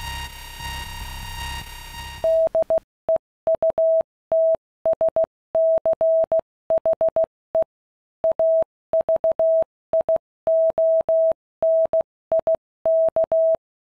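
Radio interference from a working FuG 220 Lichtenstein SN-2 night-fighter radar: a steady electrical hum with a high whine over a low pulsing throb, cutting off suddenly about two and a half seconds in. It is followed by a louder single clear tone keyed on and off in dots and dashes like Morse code, stopping just before the end.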